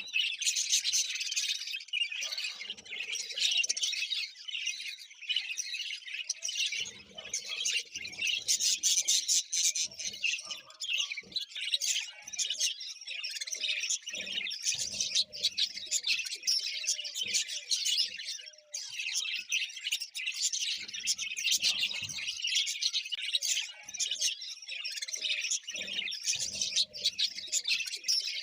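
Budgerigars chattering and warbling: a dense, unbroken stream of fast high chirps.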